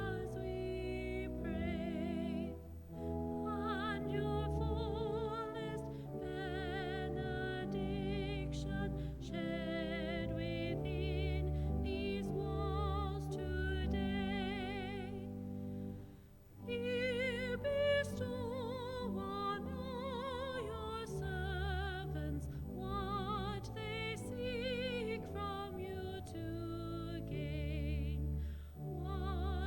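A hymn sung by a voice with strong vibrato over sustained, steadily held accompaniment chords, with a brief break between phrases about halfway through.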